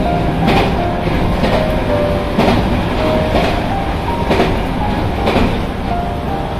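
Electric train running on jointed track: a steady running rumble with a sharp wheel clack over the rail joints about once a second. Faint background music tones play underneath.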